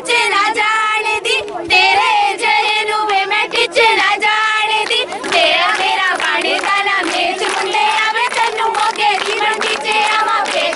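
A group of schoolgirls singing Punjabi boliyan (folk couplets) together, with hand clapping.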